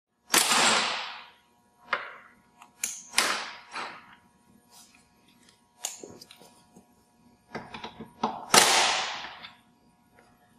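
Cordless impact wrench hammering in several short bursts, the longest about a second, loosening the bolts on the shaft of the front wheels of a rubber track unit, with sharp clanks of tools between.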